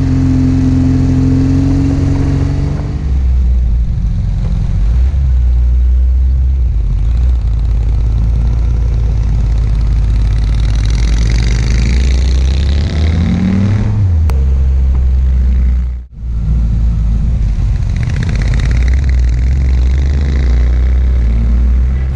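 Motorcycle engine running under way with loud wind rush on the camera microphone; the engine note rises once as the bike accelerates, and the sound cuts out for a moment about three-quarters of the way through.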